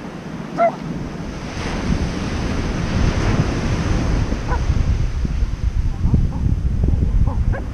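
Ocean surf breaking and washing up the beach, with wind buffeting the microphone. The wash grows louder about two seconds in.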